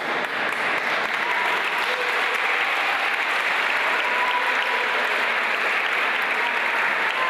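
A large crowd applauding steadily, with a few voices heard through the clapping.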